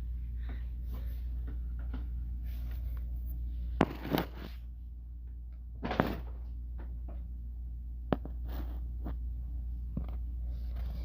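A few sharp knocks and thumps, loudest about four and six seconds in, over a steady low hum.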